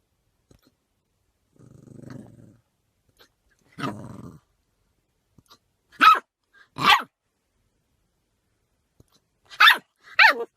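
A dog growls low a couple of times, then barks four times in two pairs of quick barks.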